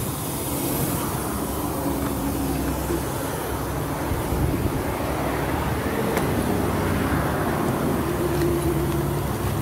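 A truck's engine idling with a steady low hum; its tone shifts slightly near the end.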